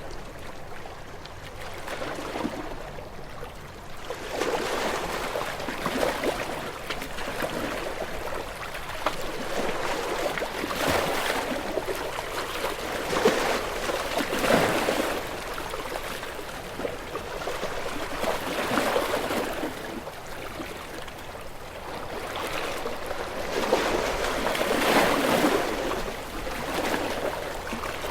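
Small waves washing onto a shore, the water swelling and draining back in several gentle surges.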